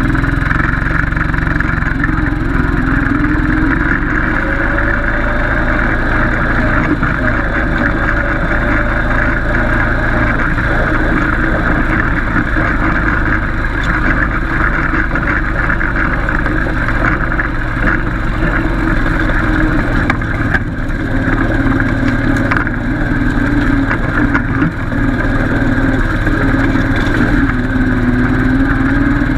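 Yamaha Grizzly 550 ATV engine running steadily, its pitch rising and falling slowly and gently with the throttle.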